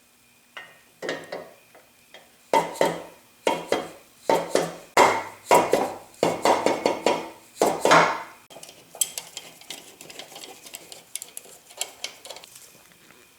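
Metal tools clanking and clinking on the planer's cast bearing housing during bolt tightening: a run of loud metallic knocks with a short ring, about two a second, then lighter rapid clicks for the last few seconds.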